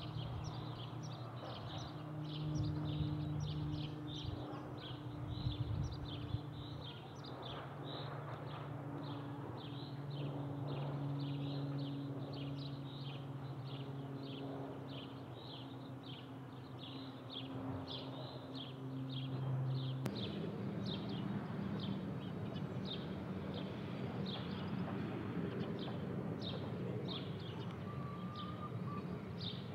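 Twin-turboprop Beechcraft King Air 90 high overhead, a steady distant propeller drone with a higher overtone. About twenty seconds in it gives way to the lower, rougher rumble of a Boeing 747-400 airliner far overhead. Throughout, a short high chirp repeats evenly, two or three times a second.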